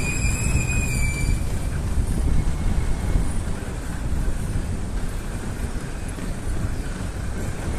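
Steady rumble of city street traffic, heavy at the low end. A thin, steady high whine sits over it and stops about a second and a half in.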